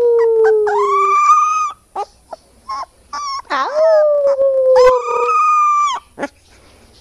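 A puppy howling: two long, drawn-out howls that sink slowly in pitch, with short yelps between them. The howling stops about six seconds in.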